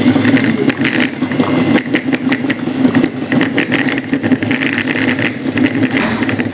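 Model railway locomotive running on the layout: a steady motor hum with frequent irregular clicks and rattles of the wheels on the track.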